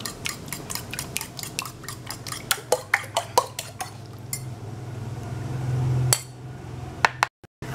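A metal spoon clinking rapidly against the rim of a ceramic bowl, about five quick taps a second, as beaten egg is scraped and poured out of it; the taps stop about four seconds in, leaving a low steady hum, with a couple more clinks near the end.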